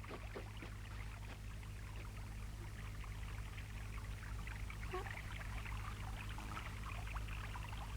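Water trickling and running steadily, a small stream, with a faint low hum underneath.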